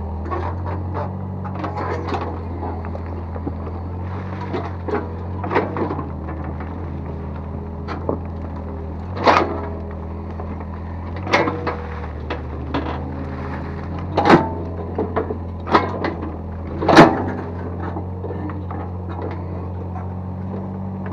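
Excavator's diesel engine running steadily, with a string of sharp clanks and knocks from the bucket and arm working the soil that come more often in the second half, the loudest near the end.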